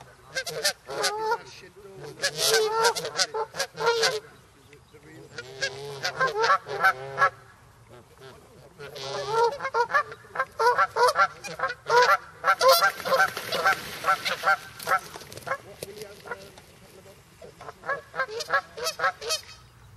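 Canada geese honking at close range, in repeated bouts of loud calls with short gaps between, the busiest run about halfway through and a last bout near the end.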